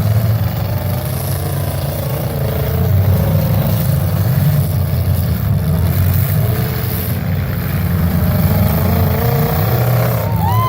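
Engines of several demolition derby cars running together, revving up and down in a loud, steady engine din.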